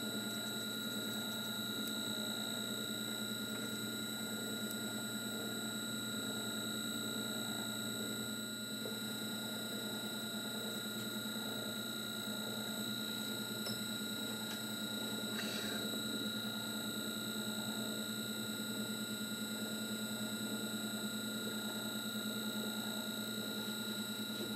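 Small metal lathe running steadily: an even motor hum with a constant high-pitched whine.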